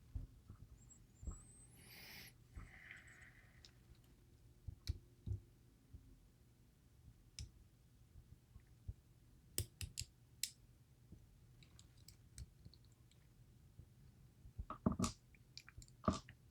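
Faint, scattered small clicks and taps of tools handling the parts of a DOM IX Twinstar lock cylinder, with a short scrape about two seconds in and a louder cluster of clicks near the end.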